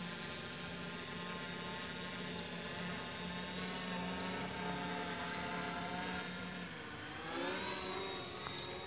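F450 quadcopter's motors and propellers whirring steadily in flight, the pitch rising about seven seconds in.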